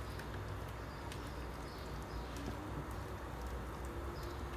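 Silicone spatula stirring onions and carrots in a sauté pan, with light scrapes and a few soft taps against the pan, over a steady low hum.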